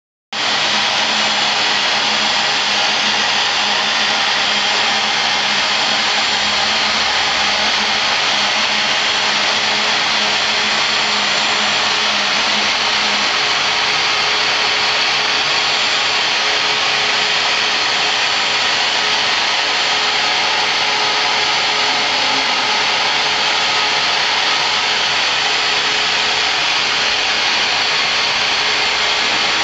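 CNC router spindle with a 1/2-inch end mill cutting EPS foam at 80 inches per minute, mixed with the rushing suction of the dust collector drawing the foam chips up through the brush shroud. The noise is loud and steady throughout; a low hum in it drops out about 13 seconds in.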